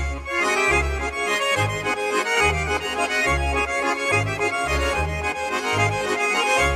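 Swiss folk music led by accordion, with a low bass note on each beat under the melody.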